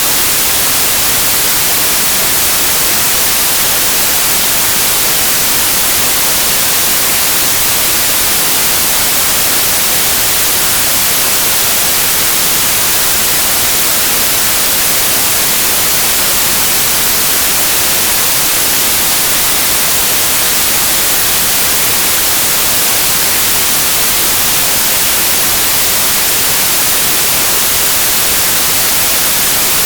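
Steady white noise: an even hiss, brightest in the high end, with no change in level.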